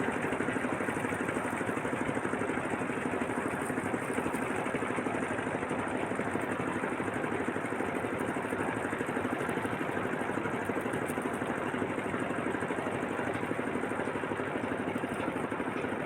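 A small engine running steadily at an even speed, with a fast, even pulse.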